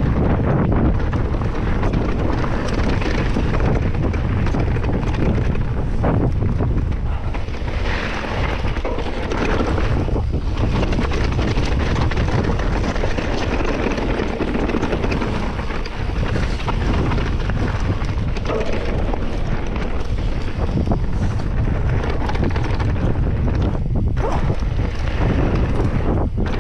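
Wind buffeting the microphone of a camera riding on a mountain bike descending a forest trail, with a steady rush of tyre noise and many small knocks and rattles from the bike over rough ground.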